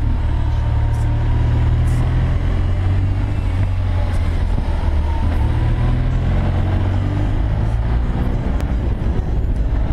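BMW R 1200 boxer-twin motorcycle engine running under way, its low drone shifting in pitch a few times with the throttle, with wind rushing over the bike-mounted microphone.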